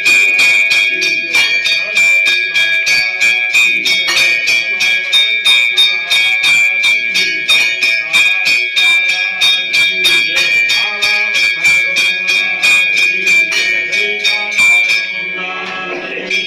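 Temple bells rung rapidly for the aarti, struck about four times a second with a steady ringing tone. The strikes stop near the end.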